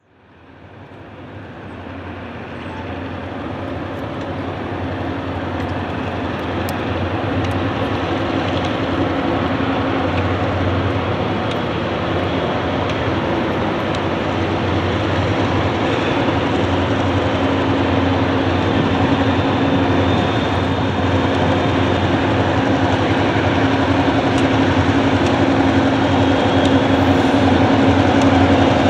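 Diesel locomotives of an approaching CSX freight train, led by a GP38-2, a steady engine drone that fades in at the start and grows gradually louder as they near.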